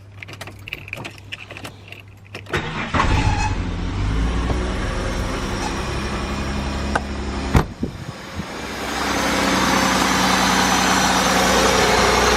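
Holden Commodore VS's 3.8-litre Ecotec V6 being started: a few light clicks as the key turns, then the starter cranks briefly about two and a half seconds in and the engine catches and settles into a steady idle, growing louder about nine seconds in. With the new water pump fitted it runs smoothly, with no knocking.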